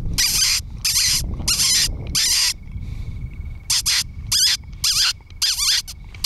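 Hand-squeak predator call: lips squeaking against the back of the hand, imitating a distressed rodent to draw in predators. It gives about eight short, high, wavering squeaks in two runs of four, with a pause of about a second between the runs.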